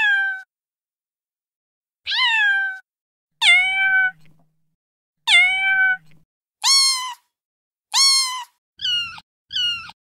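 Recorded kitten meows played back from a cat-sounds app: about eight high-pitched meows, each under a second with gaps of silence between, the last few shorter, quicker and higher.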